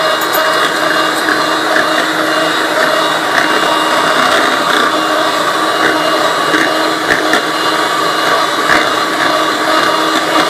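Electric mixer running steadily at one speed with a constant hum and whine, beating eggs into creamed butter and sugar for cake batter.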